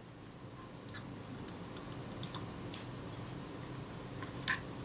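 Small screwdriver working the top-cover screws of a Kodak Retina II camera: light, irregular metal ticks and clicks, one sharper click near the end, over a faint low hum.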